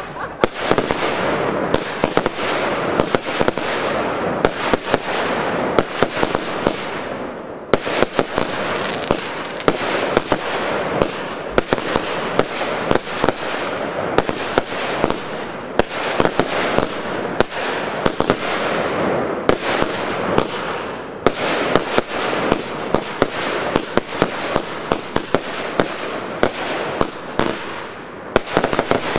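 Professional fireworks display firing continuously: many sharp bangs in quick, irregular succession over an unbroken rushing noise from the launches and bursts.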